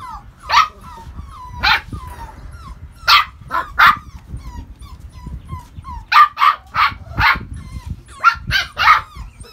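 Doodle puppies barking in high, sharp yips, coming in short clusters of two to four barks with brief gaps between.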